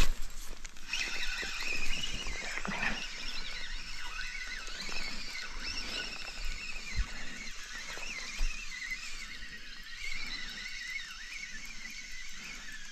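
Spinning reel being cranked on a feeder rod, its gears giving a high whine that wavers in pitch with the turning of the handle. A loud knock of the rod being handled comes right at the start.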